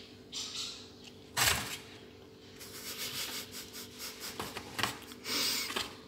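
Kittens scrabbling at and inside a cardboard box: scratching and rustling on the cardboard, with one short, loud noisy burst about a second and a half in, and busier scratching in the second half.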